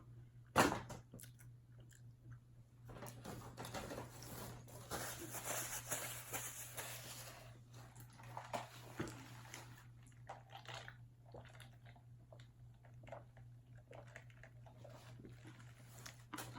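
Close-miked chewing and crunching of crispy fried chicken wing breading: a sharp crunch about half a second in, a denser run of crackly crunching for a few seconds, then quieter, scattered wet chewing.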